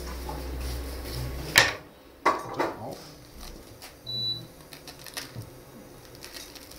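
Small kitchen knife scoring a pomegranate's skin, then a few sharp knocks about a second and a half to three seconds in as the knife is set down on a wooden cutting board. A short, high electronic beep about four seconds in.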